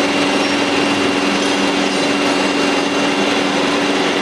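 KIMHOO CNC polygon turning machine running steadily: its belt-driven spindle and two-tool cutter head spin in step, cutting four flats on a 45 steel bar about 1 mm deep. It gives a steady hum with a few held tones over a dense hiss.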